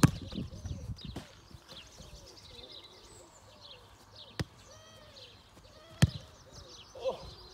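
Football struck hard with the foot: a sharp thud right at the start and another about six seconds in, with a lighter knock between them. Birds chirp in the background.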